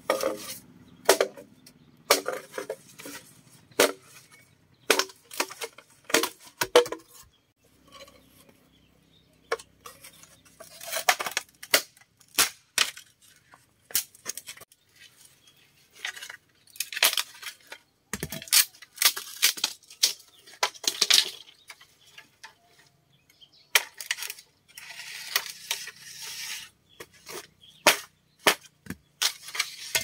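Irregular sharp knocks and clinks of hard objects being handled, some ringing briefly. A stretch of steady hiss comes in near the end.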